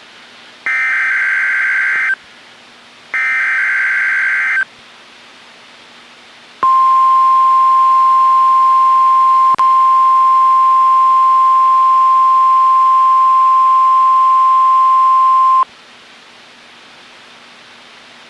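NOAA Weather Radio emergency alert test: two bursts of SAME digital header data tones, about a second and a half each, then after a short pause the steady 1050 Hz warning alarm tone, held for about nine seconds with a brief click partway through before cutting off. The alarm tone is followed by a low hiss of dead air on the channel.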